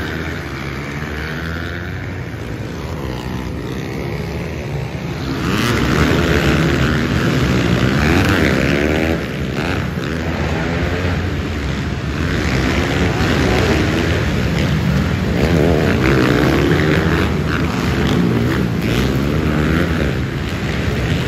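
Several pit bike engines revving up and down as the bikes ride the dirt track, their pitch rising and falling over and over. The sound gets louder about five seconds in.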